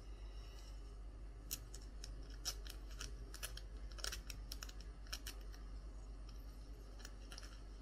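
Thin plastic penny sleeve crinkling as a trading card is worked into it by hands in nitrile gloves: a string of irregular small crackles and clicks that starts about a second and a half in.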